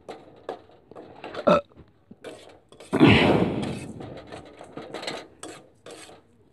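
A metal spoon scraping and stirring roasting mustard oil cake around a metal pan in short, repeated strokes; the stirring never stops, so the cake doesn't scorch. One louder, rough sound lasting about a second comes about three seconds in.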